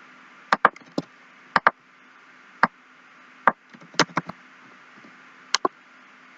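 Sparse computer keyboard and mouse clicks, about a dozen sharp separate clicks at an irregular pace, some in quick pairs, over a faint steady hum.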